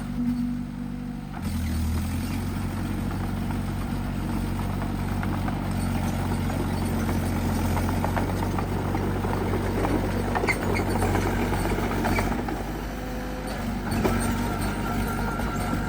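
A small bulldozer's diesel engine running under load, with clanking and scraping from its work. The engine note picks up about a second and a half in and eases off for a moment near the end.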